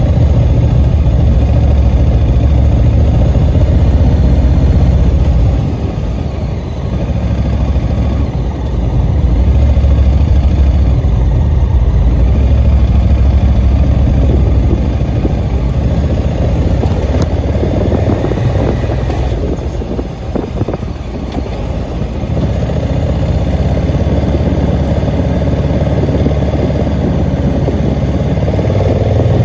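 Motor vehicle engine and road noise while climbing a mountain road, a steady low drone that eases off briefly about six seconds in and again about twenty seconds in.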